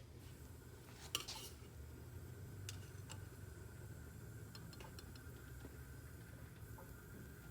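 A few light clinks and taps of cups and dishes, the clearest about a second in and a small cluster of ticks around five seconds, over a faint steady hum.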